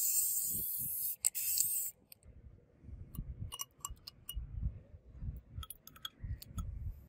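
Aerosol spray can hissing over the steel blanks for about two seconds, with a brief break. Then quieter handling: light clicks and clinks as small metal nuts are lifted off and the paper templates are peeled away.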